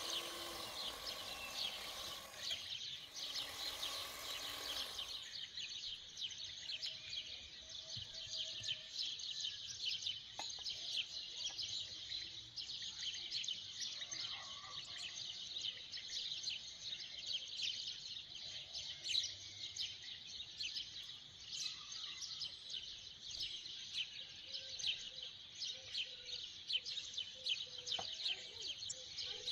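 Electric hand mixer running for about two and a half seconds, stopping briefly, then running again for about two seconds. Dense, high-pitched bird chirping goes on behind it and is all that is left once the mixer stops.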